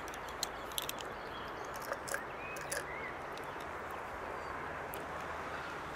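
Woodland ambience: a steady outdoor hiss with a few faint bird chirps and several light ticks, most of them in the first half.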